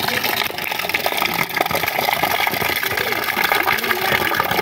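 Tap water pouring in a steady stream onto a stainless steel plate and splashing onto a concrete slab while the plate is rinsed by hand, with small uneven spatters and clinks.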